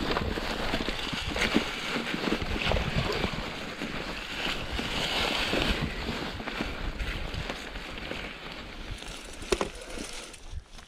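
Mountain bike rolling fast down a rough trail: a steady rush of tyre and wind noise on the microphone, broken by frequent rattles and knocks from the bike over the uneven ground. The noise eases off near the end as the bike slows.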